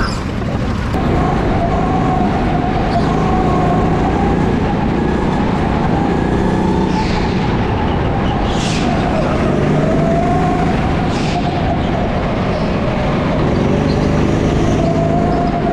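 Go-kart pulling away about a second in and running at speed around an indoor track, heard from on board. The motor drone rises and falls with the throttle over tyre and rolling noise, with a few short high squeals in the corners.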